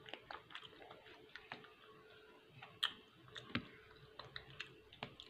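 Faint, scattered small clicks of a person eating: mouth sounds while chewing, with light fork taps.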